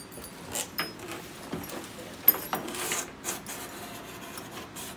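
Rustling and handling noises of packing paper and cardboard being rummaged through in a shipping box, with scattered short clicks, the sharpest a little over two seconds in.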